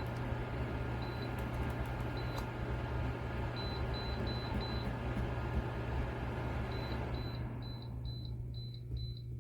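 Dreo ceramic space heater's control panel beeping as its temperature button is pressed: short high beeps, a few single ones early, then a fast steady run of about three a second from about seven seconds in. Underneath, the heater's fan is running, and its whoosh fades out about seven and a half seconds in as the heater shuts off.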